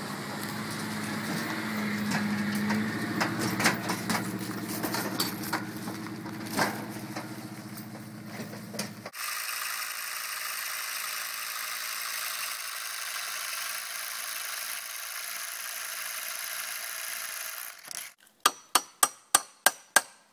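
Dodge Ram 1500 pickup's engine running under way while towing a loaded utility trailer, with scattered clanks and rattles. It cuts off suddenly to a steady, even noise of a cordless drill boring into the soil. Near the end come about eight sharp hammer blows, about four a second.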